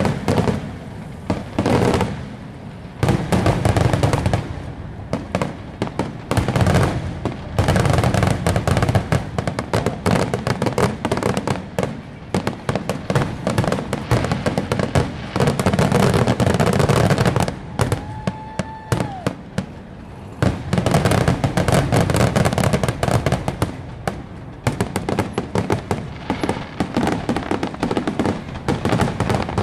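Aerial fireworks going off in a near-continuous barrage of shell bursts, booms and crackling, with a few short lulls. About two-thirds of the way through, a steady whistling tone lasts about a second.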